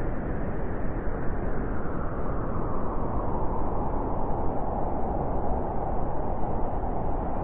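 Steady white noise for sleep: an even, deep rushing hiss with little treble, unchanging throughout.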